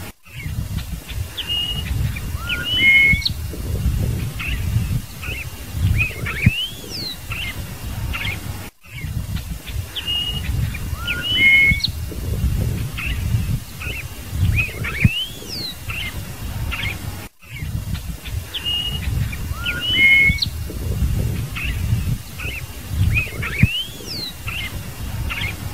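Scarlet-headed blackbird singing: clear whistled notes with rising and falling slurs, over a low rumble. The same phrase sequence repeats about every eight and a half seconds, each time after a brief cut in the sound.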